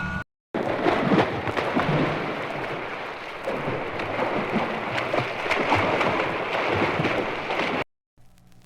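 Water splashing and churning as people swim in a pool: a dense patter of splashes with no steady tones, starting and stopping abruptly.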